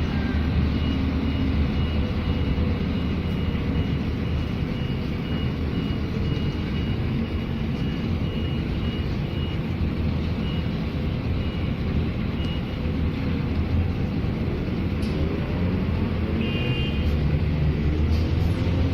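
Street traffic running with a steady low rumble. A high electronic beep repeats at an even pace for about the first twelve seconds, and a short toot sounds about two seconds before the end.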